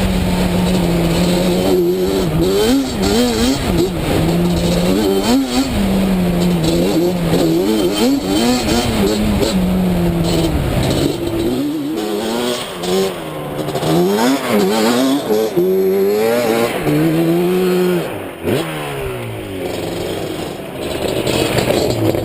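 Tuned Yamaha Banshee quad's twin-cylinder two-stroke engine, revved hard and backed off again and again, its pitch rising and falling throughout, with a brief drop near the end.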